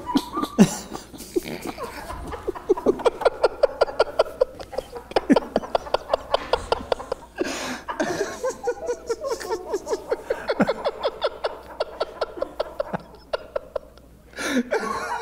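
Several men laughing hard together in a long fit of laughter, a fast string of short repeated ha-ha pulses that rises and falls and trails off near the end.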